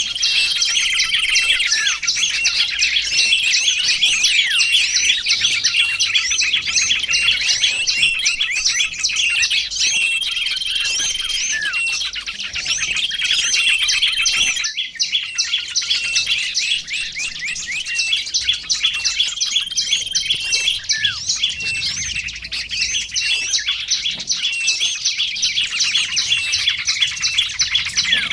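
Dense chorus of small songbirds, many rapid overlapping chirps and twitters with short level whistles here and there, played as a lure recording for small birds.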